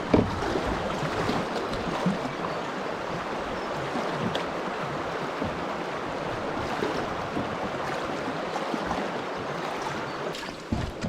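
Fast river water rushing steadily around a canoe in a strong current, with a short knock right at the start.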